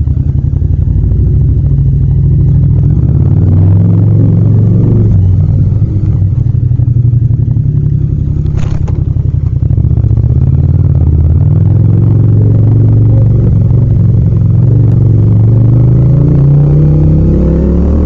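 Yamaha MT-07's parallel-twin engine running at low speed, its pitch rising and falling with the throttle and climbing steadily near the end as it accelerates. A short sharp click about halfway through.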